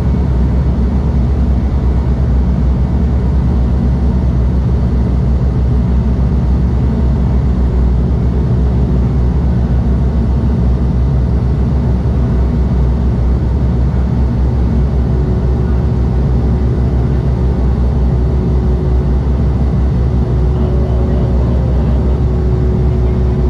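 Bombardier Dash 8-Q200's Pratt & Whitney PW123 turboprop engines and propellers droning steadily, heard inside the cabin beside the wing: a loud, deep, even hum. A faint higher steady tone comes in about fifteen seconds in.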